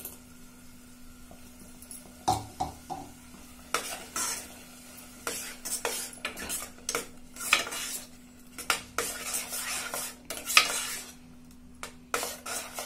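Spoon scraping and knocking against a pressure-cooker pot while stirring tomato puree into thick pav bhaji, in irregular strokes from about four seconds in. A single knock a couple of seconds in.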